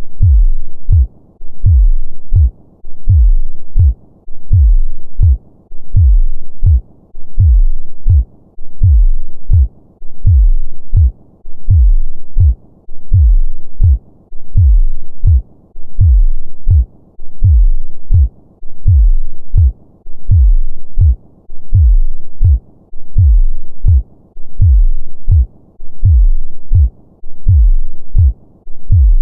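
Human heartbeat at a normal, steady resting rhythm: deep, low thumps repeating evenly at a little over one beat a second.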